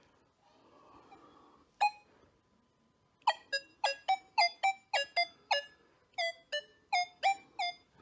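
Nokta Makro Legend metal detector in Field Mode with full tones, sounding a single beep and then a quick run of about fifteen short beeps whose pitches shift from one to the next. It is responding to a large button that has a steel pin on its back.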